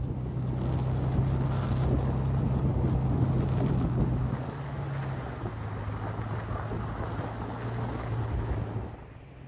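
Toyota Tacoma driving slowly over packed snow on aired-down all-terrain tires: a steady low engine hum under the rough rolling noise of the tires in the snow, with wind buffeting the microphone. The engine note drops a little about halfway through.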